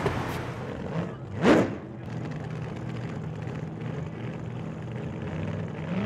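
Vehicle engine idling steadily, with one brief, loud rising sweep about a second and a half in.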